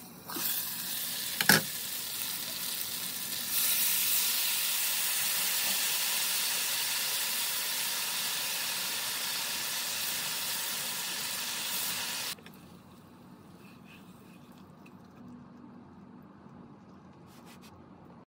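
Chicken sizzling in a frying pan as its sweet soy sauce reduces and caramelizes around it, with one sharp clink about 1.5 s in. The sizzle grows louder at about 3.5 s, then drops suddenly to a faint sizzle at about 12 s.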